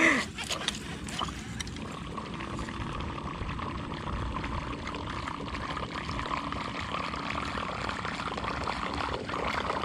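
Water lapping and trickling against the hull of a small boat on calm water, steady and low. A few light knocks come right at the start.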